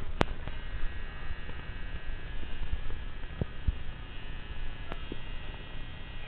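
Steady low electrical hum with a faint high whine over it, broken by a sharp click just after the start and a few soft knocks.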